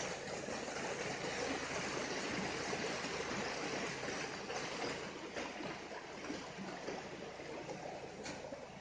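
River water rushing steadily over rocks, an even hiss.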